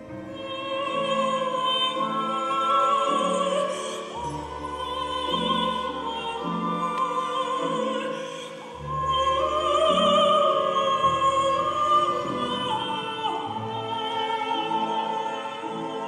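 Woman singing long held notes in an operatic style with wide vibrato, accompanied by a symphony orchestra with low string bass notes.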